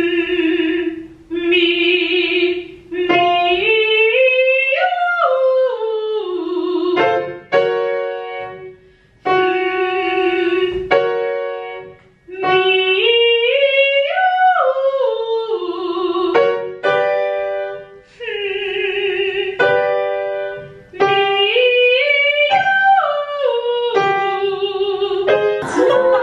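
A woman singing vocal warm-up exercises at a grand piano. She holds notes, then three times sings a scale that climbs about an octave and comes back down, with short repeated notes in between. The piano gives the pitches.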